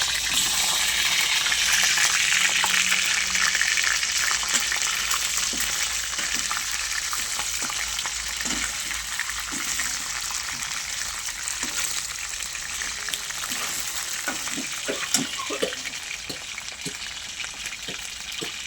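Food frying in a pan: a steady sizzling hiss with many small crackles, slowly dying down.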